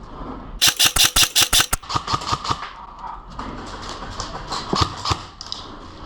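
Airsoft electric rifle, likely a Lancer Tactical LT-32, firing a rapid full-auto burst of about ten shots in just over a second, followed by scattered fainter shots and clicks.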